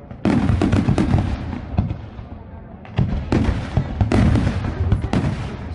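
Fireworks going off in rapid runs of bangs and crackles. One salvo starts just after the opening and dies away by about two seconds in; a second, denser salvo starts about three seconds in and keeps going.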